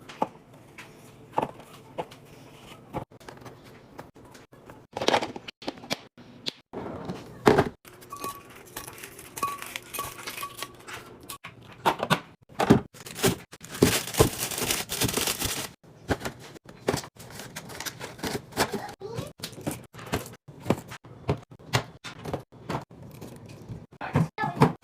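Fridge restocking: food items and plastic containers set down and handled with many short clacks and knocks, and packaging crinkling and tearing, with a longer stretch of rustling about halfway through.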